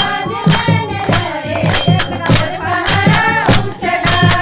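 Voices singing a Kumaoni Holi song over a steady beat of drum strokes with jingling, tambourine-like percussion, about one and a half strokes a second.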